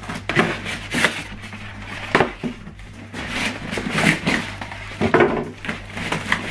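Foam packing pieces and a plastic-wrapped printer being worked loose and pulled out of a cardboard box: irregular scraping, rubbing and knocks of foam against cardboard.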